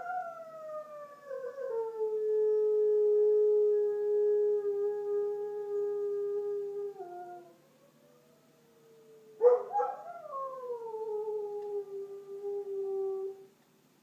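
Border Collie howling in response to a tornado siren: two long howls, each starting high and sliding down to a held low note. The first lasts about seven seconds; the second starts with a sharp yelp about halfway through and ends shortly before the end.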